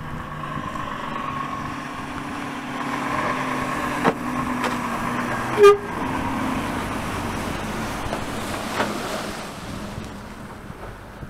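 A truck approaching and passing close by with its engine running, giving one short horn toot about halfway through.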